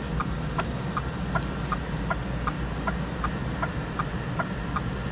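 Car turn-signal indicator ticking steadily, about two to three clicks a second, over the low hum of the car's engine and cabin.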